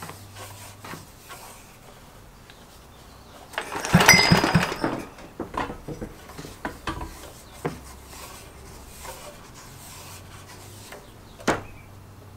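1941 Briggs & Stratton Charger (Model PC) engine yanked over with its wind-up starter rope about four seconds in: a second or so of rapid chuffing as it turns over, then it stops without running. After that, light clicks and rubbing of the rope being rewound on the pulley, and a sharp knock near the end.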